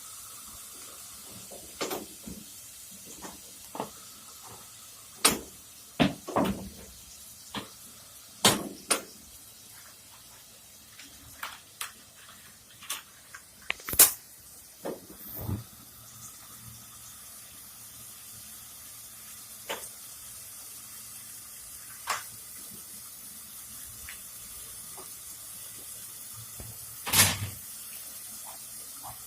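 Meat frying in a pot with a steady sizzle, while a spoon knocks and scrapes against the pot at irregular intervals as the meat is stirred.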